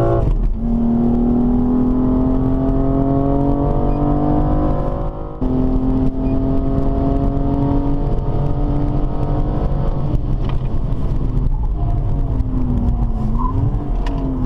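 BMW M235i's turbocharged 3.0-litre straight-six engine pulling hard, its pitch climbing steadily. About five seconds in it dips briefly at an upshift, then climbs again. Near the end the revs fall and rise.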